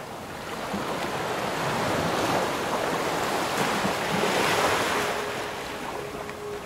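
Small waves breaking and washing up a shell-and-pebble shoreline, the surf swelling and easing. A steady held tone, the start of background music, comes in about five seconds in.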